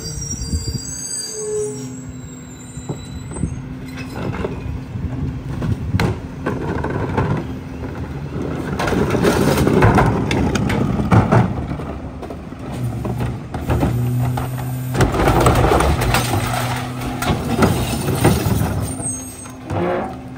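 Garbage truck's diesel engine running with a steady hum while recycling carts are tipped into the rear hopper, their contents clattering and tumbling in, in two loud spells about nine seconds in and again about fifteen seconds in, with scattered knocks of carts against the hopper.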